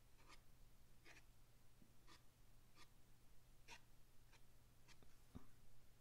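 Faint, short swishes of a paintbrush stroking across dry watercolour paper, about one a second, as flame shapes are painted in, with a soft knock near the end.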